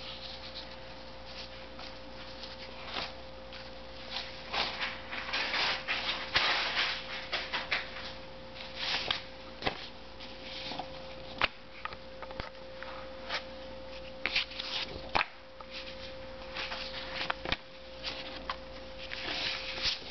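Old comic-book paper rustling and rubbing as the comics are handled and their pages turned, in irregular bursts, with a few sharp clicks and a faint steady tone underneath.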